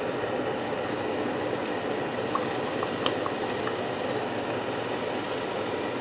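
Hot oil in a deep fryer bubbling and sizzling steadily around a battered Leberkäse roll just put in to fry, with a few faint ticks around the middle.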